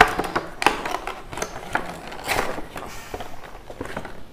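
Cardboard retail box being handled and its taped end flap prised open: rustling and scraping cardboard with a few sharp clicks, the loudest at the very start.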